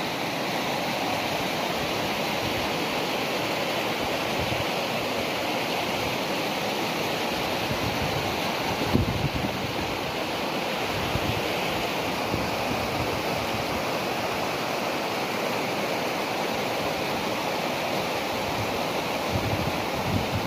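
Mountain stream rushing steadily over rocks. Wind buffets the microphone briefly about nine seconds in and again near the end.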